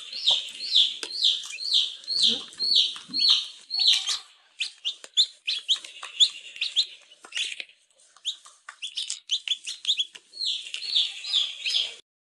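A domestic chicken chick peeping: a run of high, falling peeps about two a second, with two short pauses, stopping just before the end.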